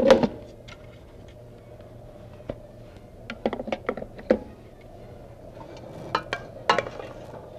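Kitchenware being handled: a sharp knock at the start, then scattered clinks and knocks in two short clusters, over a steady low hum.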